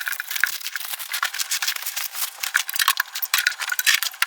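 Small metal keys rattling and clicking while being handled and taken out of their packaging: a dense, irregular run of light clicks and rattles.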